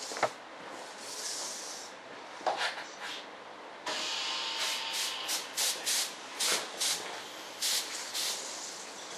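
A sharp knock just after the start, then a compressed-air paint spray gun spraying paint: from about four seconds in, a steady hiss of air with a string of short, louder bursts of spray as the trigger is pulled again and again.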